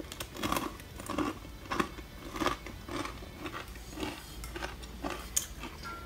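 Someone chewing crunchy mini pretzels close to the microphone: a steady run of crisp crunches, about two a second.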